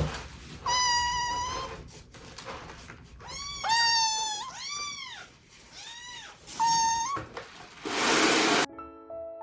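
Newborn kittens meowing: a string of high-pitched cries, some held long and level, others short and arching up and down. About eight seconds in comes a short hiss of noise, and music starts just before the end.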